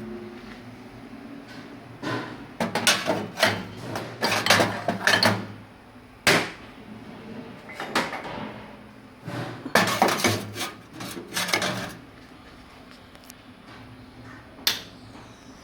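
Bursts of clattering and knocking, with one sharp single knock about six seconds in, over a steady low hum.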